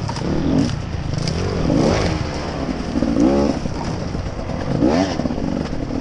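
Dirt bike engine running, revving up and down repeatedly as the throttle is worked over rough ground, with a few short knocks and clatter from the bike over rocks.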